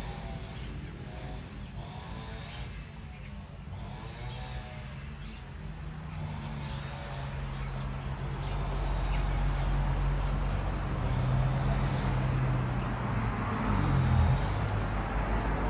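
A low, steady engine hum that grows louder through the middle and wavers in pitch near the end.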